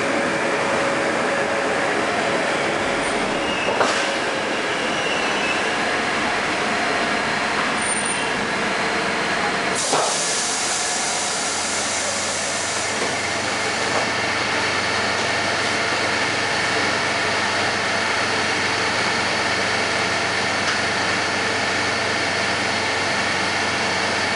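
Interior of a Moscow Metro 81-760/761 Oka car as the train runs into a station and stops, with a knock about four seconds in. About ten seconds in the doors open with a clunk and a louder hiss, and the standing car hums steadily.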